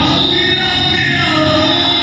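Loud recorded dance music; the mix cuts abruptly to a new track right at the start, with a sustained high tone and a falling pitched line.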